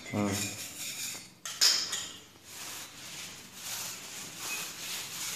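Metal scraper scratching and tapping on ceramic floor tiles along the joints, with a sharp clink about a second and a half in, then repeated faint scratching strokes.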